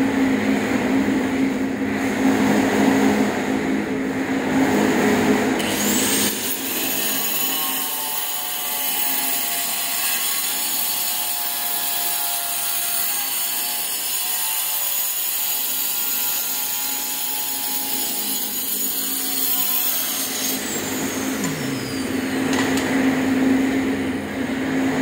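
Handheld angle grinder with a cutting disc spinning up sharply about five seconds in, then cutting a ceramic tile with a steady high-pitched whine for about fifteen seconds before winding down. A steady low hum runs in the first few seconds and again after the grinder stops.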